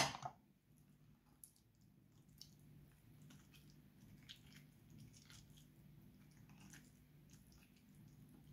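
A sharp knock right at the start, then a hand squishing and mixing shrimp through a wet tomato mixture in a ceramic bowl: faint soft squelches with scattered small clicks.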